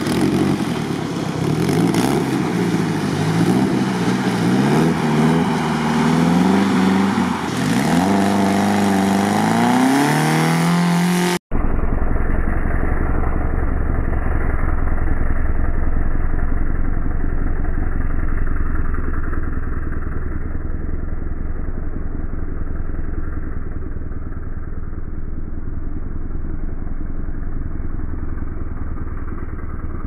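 Suzuki Samurai engine revving hard under load on a deep-sand climb, its pitch rising and falling as the throttle is worked. About eleven seconds in the sound cuts abruptly to a duller, steadier engine drone as the wheels spin and throw up sand.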